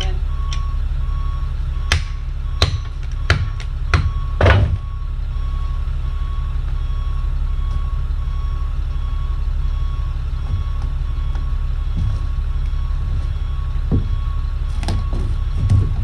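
Engine idling with a steady low rumble under a vehicle's reversing alarm, which beeps on and off. A few sharp knocks come between two and five seconds in.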